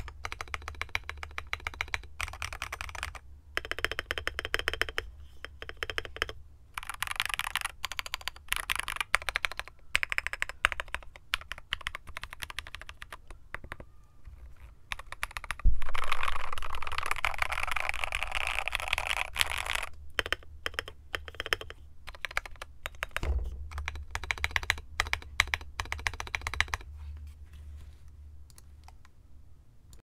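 Sound test of an Akko MOD007 aluminium-plate mechanical keyboard with lubed and filmed JWK Black linear switches and Akko ASA keycaps: a steady run of fast keystrokes, clean with some thack. A little past the middle, a thump opens a louder, denser flurry of keystrokes lasting a few seconds; a second thump follows later, and the typing thins out near the end.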